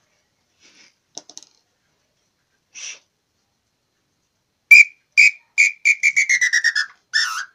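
Lathe-turned nambu (tinamou) call whistle being blown as a test after its tone was refined by sanding: two short whistled notes, then a quick run of notes falling in pitch, and a wavering note near the end. A few faint clicks from handling the call come earlier.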